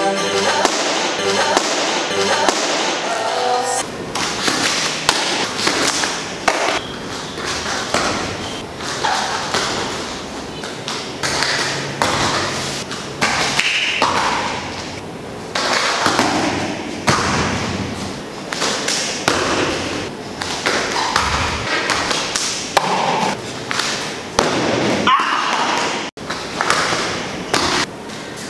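Bare feet thudding and slapping on a foam mat as taekwondo kicks, spinning kicks and jumps land, repeated at irregular intervals, with music under the first few seconds.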